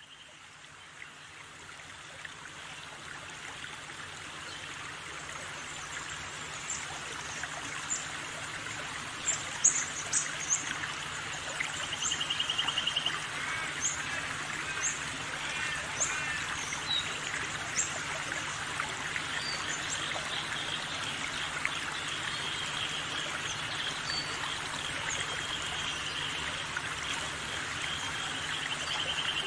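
Running water trickling steadily, with scattered short bird chirps and a few brief trills. It fades in over the first few seconds.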